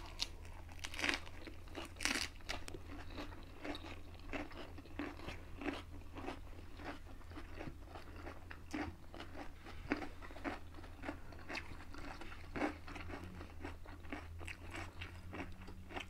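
Close-miked crunching and chewing of fresh lettuce wraps: a steady run of wet, crisp crunches, with louder bites about one and two seconds in and again near twelve seconds, over a low steady hum.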